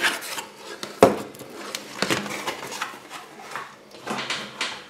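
Foil-wrapped Kinder Surprise chocolate eggs being taken out of a cardboard box and set down on a table: light knocks and rustling of foil and cardboard, with one sharper knock about a second in.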